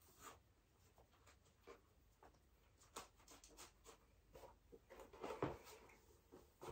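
Faint rustling and light clicks of laces being pulled and tied on a lace-up platform ankle boot, with a louder rustle of the boot being handled about five seconds in.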